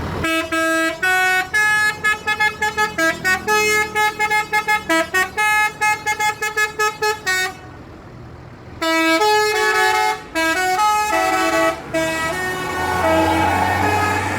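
Bus telolet horn of the Basuri type playing a rapid melody of short, loud horn notes that hop between pitches. It pauses for about a second just past the middle, then plays another run of notes. Near the end the notes give way to a steady noisy wash over an engine's low hum.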